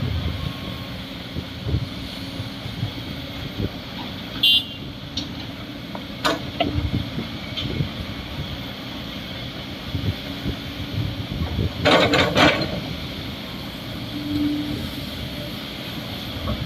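Komatsu D58 bulldozer's diesel engine running with a steady low rumble, broken by sharp metal clanks, a couple of them early and a louder cluster about twelve seconds in.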